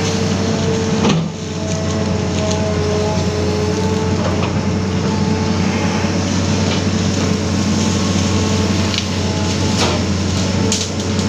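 Amphibious excavator's diesel engine running steadily with a constant whine from the machine, while the bucket works through brush and tree trunks, giving a few sharp knocks and cracks, the first about a second in and several near the end.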